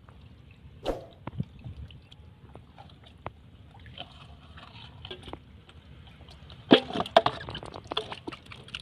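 Hands and a small metal scoop digging through thick wet mud: squelching and sloshing with scattered sharp wet slaps, loudest in a quick cluster about seven seconds in.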